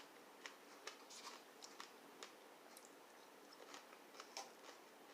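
Near silence broken by faint, scattered small clicks and soft mouth sounds of someone quietly eating strawberries.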